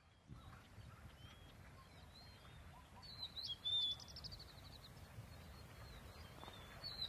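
Faint outdoor ambience: a low, steady rumble of noise with scattered bird chirps. The loudest sound is a bird's rapid trill that falls in pitch, about three seconds in.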